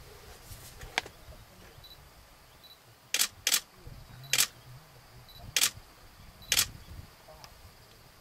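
Camera shutter clicking: six single shots at irregular intervals. A faint one comes about a second in, then five sharper ones follow over the next few seconds, roughly a second apart.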